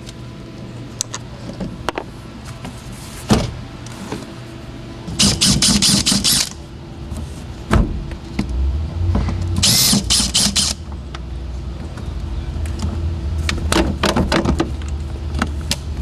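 Cordless drill-driver backing out interior trim screws in a few short whirring bursts, with plastic trim clicking and rattling in between.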